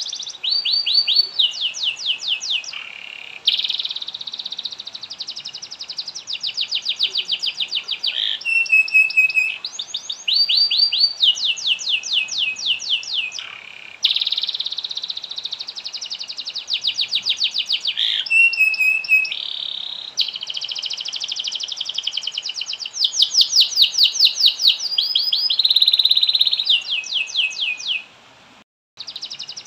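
Male domestic canary singing a long, continuous song of fast repeated trills and rolls, with short whistled notes between the phrases. The song breaks off briefly near the end.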